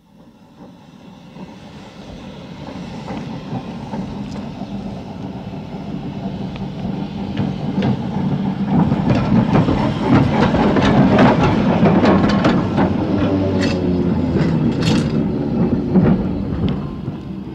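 Electric tram approaching, its rumble and low hum growing steadily louder, with sharp clicks and clatter from the wheels on the rails from about halfway through.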